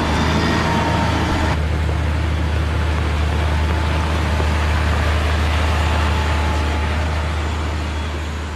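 Caterpillar 120 motor grader's diesel engine running steadily under load as its blade spreads gravel aggregate, with a dense rushing noise over the low engine tone. The sound fades away near the end.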